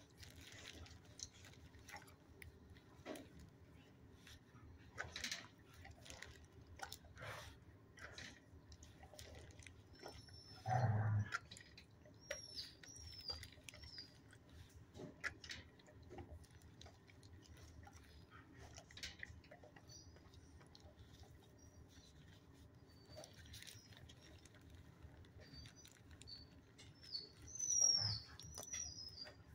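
Dogs in a shelter kennel: one short bark about a third of the way in and another near the end, with faint high-pitched yips or squeaks and scattered light taps and clicks between.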